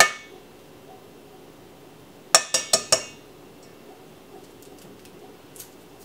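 A hard-boiled egg knocked against the rim of a stainless steel mixing bowl: one sharp clink, then four quick clinks a little over two seconds later, each with a short ring.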